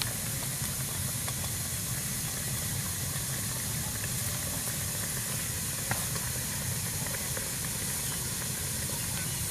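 Steady hiss of a whole cabbage head frying in an aluminium wok over a portable gas stove, with a light click about six seconds in.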